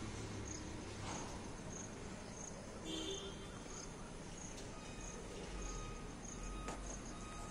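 Cricket chirping steadily at about two chirps a second over an even background hiss, with a brief pitched sound about three seconds in.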